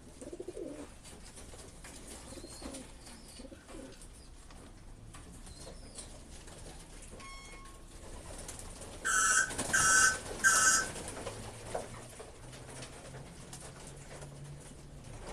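Racing pigeons cooing in the loft. About nine seconds in come three short, loud electronic beeps, a pigeon-racing clock registering a bird's ring as it is loaded for the race.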